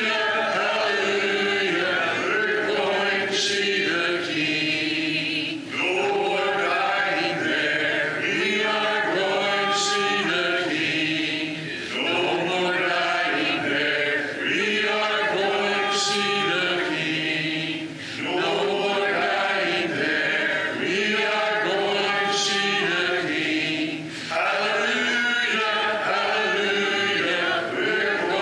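Congregation singing a hymn unaccompanied, many voices together. The sung lines break briefly about every six seconds.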